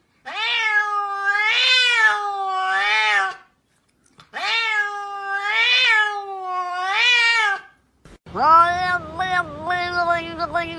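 A cat giving two long, drawn-out meows of about three seconds each, the pitch wavering up and down. From about eight seconds in, a different cat gives a choppy run of shorter yowls.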